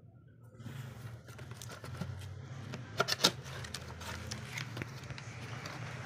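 Cardboard toy box being handled and its end flap pulled open: rustling and scraping of the carton with many small clicks, and two sharp snaps about three seconds in.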